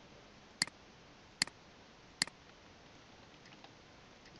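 Three sharp computer-keyboard key clicks, evenly spaced about a second apart, as a terminal command is typed.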